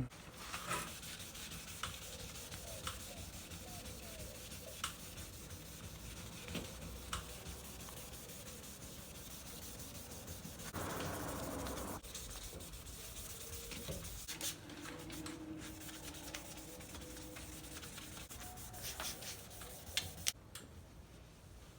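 Sandpaper rubbed by hand back and forth over a plastic headlight lens: steady scratchy sanding with scattered small clicks, and a louder stretch of about a second roughly halfway through.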